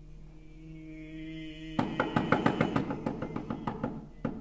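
A man's voice holds one steady sung note with no vibrato. About two seconds in, fingers and knuckles start knocking on the wooden body of a closed grand piano in a quick flurry of several knocks a second, which thins out toward the end.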